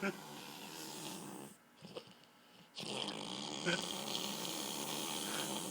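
A man snoring: two long snores with a short pause between, the second longer and louder.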